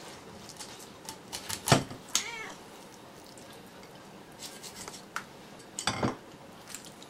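A domestic cat meows once about two seconds in, a short call that rises and falls. Around it are scattered sharp knocks and clicks from a knife filleting a sea bream on a wooden cutting board, the loudest just before the meow.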